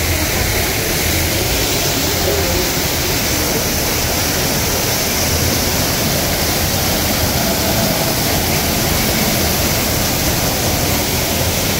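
Artificial rockwork waterfall pouring into a shallow pool: a steady, loud rush of splashing water.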